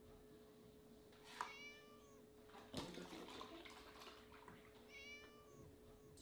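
Kitten meowing twice, two short calls about four seconds apart, with a single knock between them and a faint steady hum underneath.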